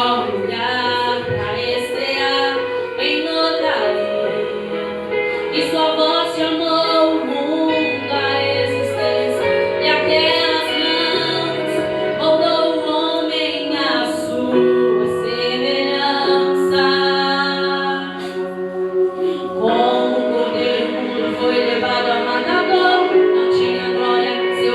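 Christian gospel song with a woman singing the lead over instrumental backing.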